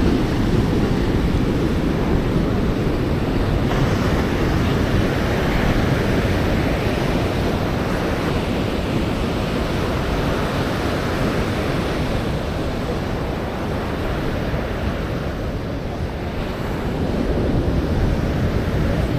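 Ocean surf washing onto a sandy beach, a steady rush with slow swells, with wind buffeting the microphone.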